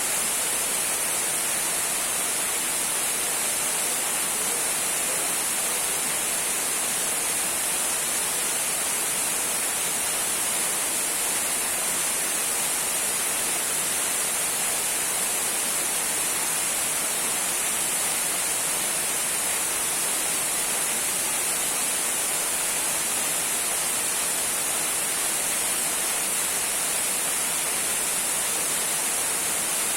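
Small waterfall trickling, a steady bright hiss of falling water that never changes.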